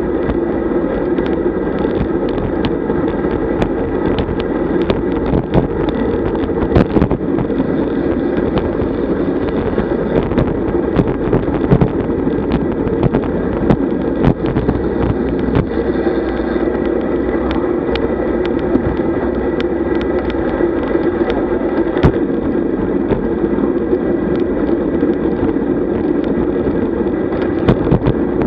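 Wind rushing over the microphone and road noise from a road bicycle riding at about 35 km/h: a steady rush with frequent small clicks and knocks.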